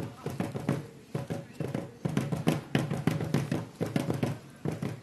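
Rhythmic clacking percussion beat, about three to four sharp strokes a second, keeping time for a group dance, with a low steady sung or chanted tone under it.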